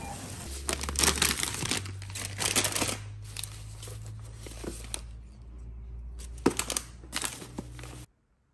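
Rustling and crinkling of grocery packaging and a cloth tote bag as a hand moves boxes around inside it, in several short bursts over a low steady hum. The sound stops abruptly near the end.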